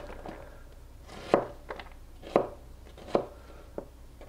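Chef's knife dicing a halved onion on a plastic cutting board: the blade cuts through the onion in sharp strokes that tap the board, about one a second and unevenly spaced.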